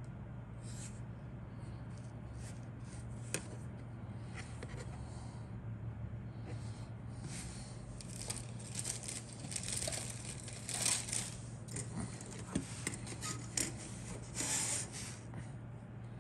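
Plastic model-kit sprues being handled and set down on a cutting mat: scattered light clicks and rustling, busiest in the second half, over a steady low hum.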